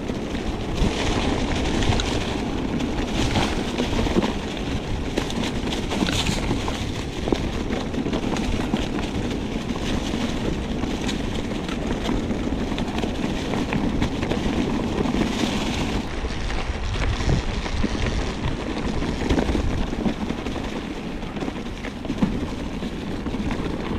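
Steady rush of wind on the microphone while riding down a rough trail, with scattered rattles and knocks from the ride over rocks and sticks.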